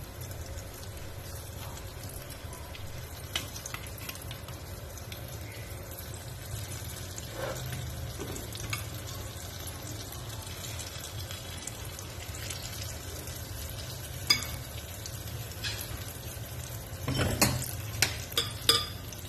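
Banana fritter batter deep-frying in a small stainless steel pot of hot oil, a steady sizzle. A few sharp clicks come through it, several in quick succession near the end.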